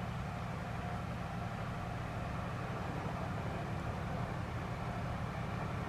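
Steady low rumble of a vehicle engine running, even in level throughout.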